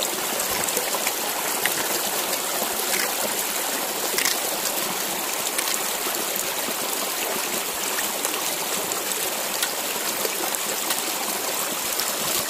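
Shallow stream running over rocks, a steady wash of water, with a splash near the end as water is scooped by hand onto a face.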